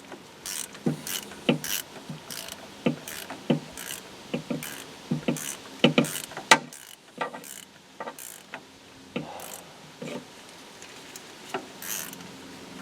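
Ratchet wrench clicking in short, irregular strokes, a sharp metallic click every half second or so, as a nut is worked off on the engine.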